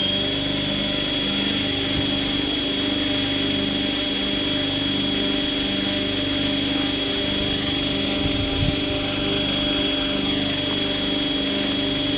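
Radio-controlled 500-size scale UH-1H Huey helicopter running on the ground at a steady rotor speed after spool-up: a steady high motor whine over a pulsing rotor beat. A brief low bump about eight and a half seconds in.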